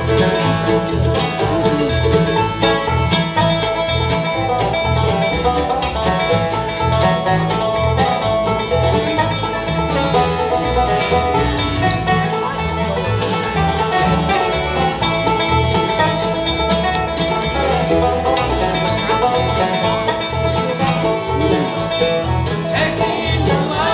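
Live acoustic bluegrass band playing an instrumental passage: fiddle, banjo, mandolin and acoustic guitar over an upright bass keeping a steady beat.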